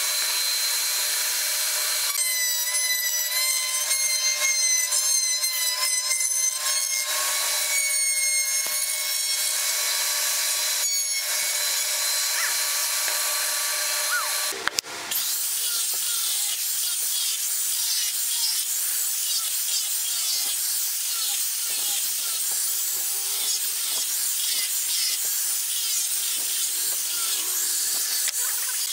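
Table-mounted wood router running with a high, wavering whine as a wooden board is fed against the bit to cut its edge, with brief breaks in the cutting. About halfway through the sound cuts off suddenly and gives way to a steadier high hiss.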